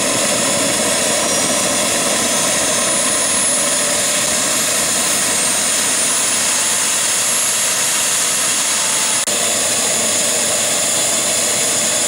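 Model jet turbine engine running at high power: a loud steady rush with a thin high whine that slowly rises in pitch, and a brief dip about nine seconds in.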